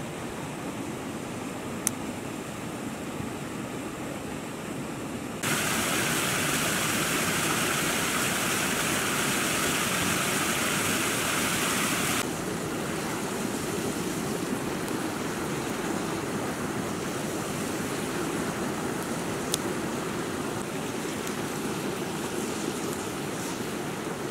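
Small waterfall cascading over rocks: a loud, bright rushing splash for about seven seconds, starting about five seconds in and cutting off abruptly. Before and after it a lower, steady rush of running water, with two single sharp pops from a smouldering wood campfire.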